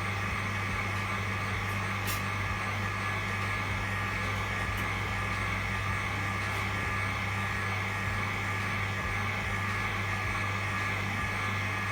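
Hot air gun blowing steadily, a constant hiss over a low hum, warming a phone's front glass to loosen it for removal.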